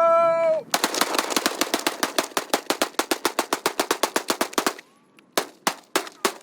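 Two 9 mm pistols, a Glock 19 and a Springfield XD9, are fired two-handed at once. About a second in, a rapid string of some thirty shots runs for four seconds, then a few slower single shots follow.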